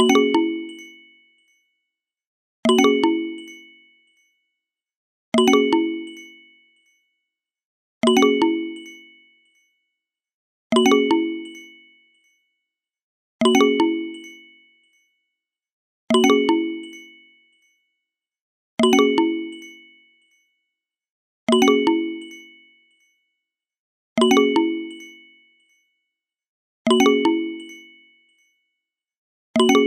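A sound-effect ding, a bright struck ring that fades out over about a second and a half, repeated identically about every 2.7 seconds.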